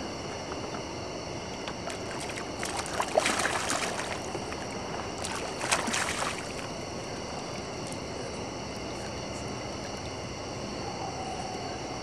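Water splashing twice as a hooked catfish thrashes at the surface beside the boat and is scooped into a landing net, over a steady background hiss.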